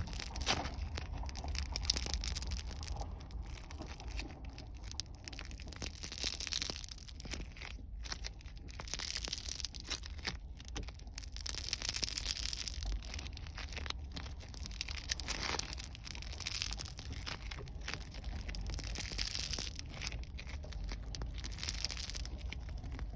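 Crackle foam being squeezed and worked by hand, giving a dense run of fine crackles and pops that swells and eases every few seconds.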